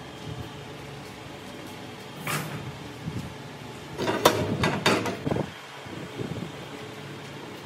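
Metal clanks and knocks as the welded steel shaft is handled in the lathe chuck: one knock about two seconds in, then a quick run of clanks around four to five seconds, over a steady low hum.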